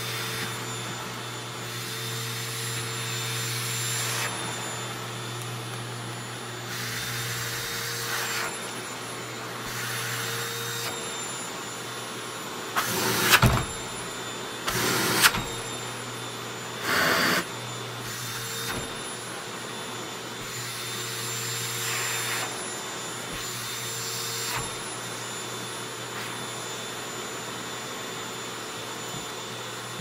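Vacuum cleaner running steadily with a constant motor whine, its dusting-brush nozzle on the wand sucking at a quilt and a person's face. The rushing suction noise swells and fades every couple of seconds as the nozzle moves, with three short, much louder bursts in the middle.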